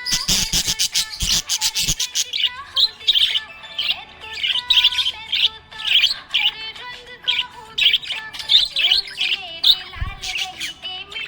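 Small pet parrots chirping and twittering rapidly, over background music.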